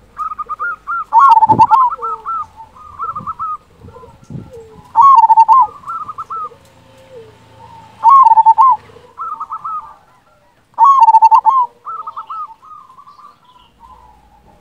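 Zebra dove (perkutut) cooing: repeated phrases of quick rolling notes, loud ones about every three seconds with softer coos between.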